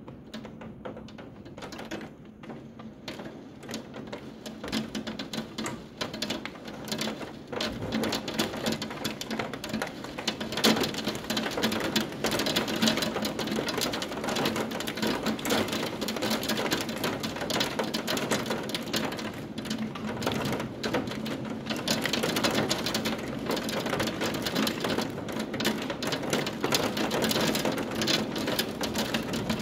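Heavy rain heard from behind a window, a dense rapid tapping of drops that grows heavier about eight to ten seconds in.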